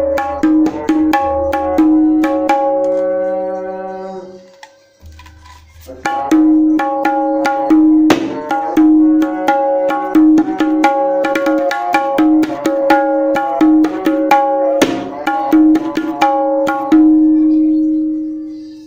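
Jackfruit-wood kendang with a synthetic head, played by hand: quick strokes that each ring on with a clear pitched tone, with deeper strokes now and then. Playing pauses briefly about five seconds in, then carries on.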